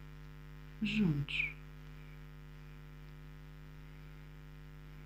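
A steady electrical mains hum runs under the recording, a low buzz with many even overtones. A single spoken word comes about a second in.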